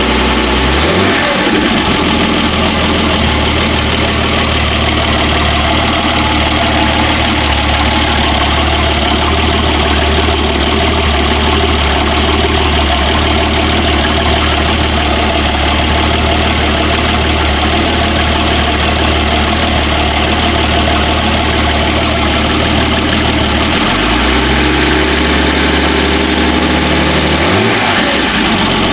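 Volvo Penta AQ170 marine engine, a B30 straight-six, running steadily. Its speed rises about a second in, holds, drops back toward idle near the end, then picks up again just before the end.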